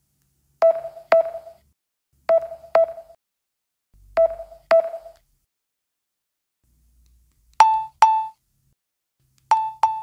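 Samsung Galaxy-theme volume key feedback tones: ten short pitched blips, one per volume-button press, each with a brief ringing tail. The first six, in three pairs, come from One UI 6 at a lower pitch; the last four, from about seven and a half seconds in, are One UI 7's higher, brighter blip.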